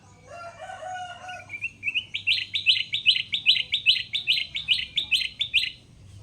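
Kutilang emas (golden bulbul) singing: a lower warbling phrase, then a short rising run, then a loud, fast series of sharp repeated notes, about four a second, lasting some three and a half seconds.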